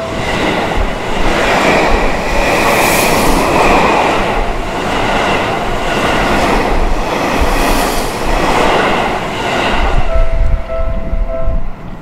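Seibu 001 series Laview limited express train passing close by at speed: a loud rush of wheel and rail noise with a rhythmic rail-joint clatter as each car goes by. Once the train has cleared, the level crossing's warning bell rings on alone and stops shortly before the end.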